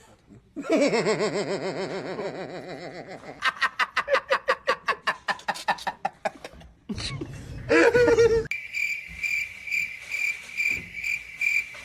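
A person laughing: a long wavering laugh, then a fast run of breathy laugh pulses. In the last few seconds a high-pitched tone pulses about twice a second.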